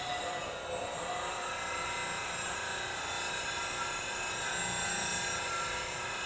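A bench grinder's CBN wheel running steadily while a steel bowl gouge is ground against it, shaping a swept-back bevel.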